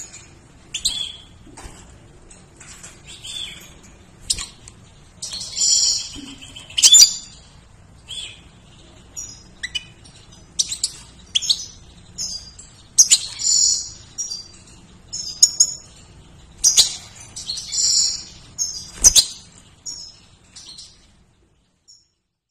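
European goldfinch singing: bursts of quick, high twittering and chirps every second or so, with gaps between phrases. A couple of sharp knocks fall among them, and the song stops a little before the end.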